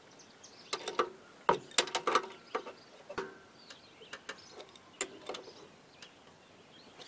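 Adjustable wrench clinking on the nut and bolt of a mower-deck washout port as the nut is snugged down: a string of light metallic clicks and taps, some briefly ringing, thickest about two seconds in and thinning out towards the end.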